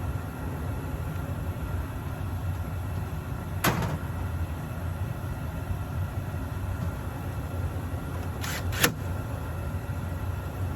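Gas-electric package HVAC unit running with a steady low hum. A sharp click comes about a third of the way in, and two more close together near the end.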